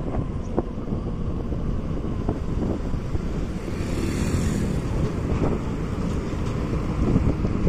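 Wind rumbling over the microphone of a moving motorcycle, mixed with engine and road noise, steady throughout.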